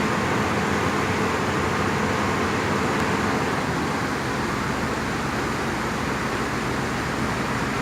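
Heavy diesel construction machinery running steadily, an even engine drone with a faint tone that fades out about three and a half seconds in.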